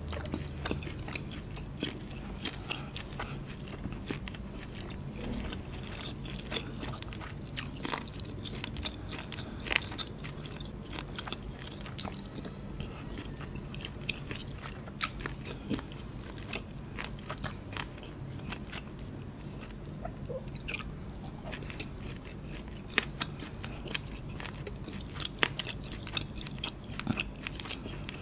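Close-miked chewing and biting of noodles, with many irregular short clicks and smacks from the mouth.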